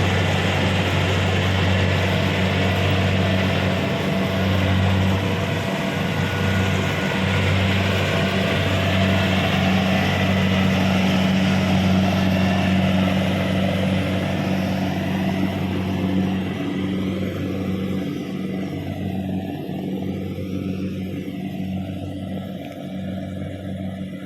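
Kubota DC-70 Pro combine harvester's diesel engine and threshing machinery running steadily at working speed. The sound grows fainter over the last several seconds.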